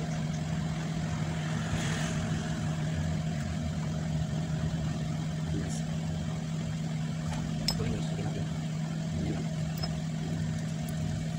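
Steady mechanical hum with a constant low tone, with a faint click about three-quarters of the way through.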